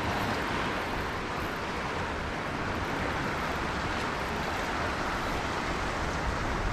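Steady rush of wind and surf, with wind rumbling on the microphone.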